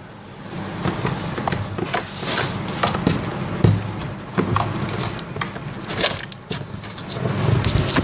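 Slime being squeezed and worked by hand, giving irregular sticky pops and crackles.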